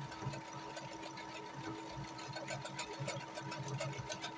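Brother sewing machine running steadily, its needle stitching with a fast, even run of clicks over a constant motor hum.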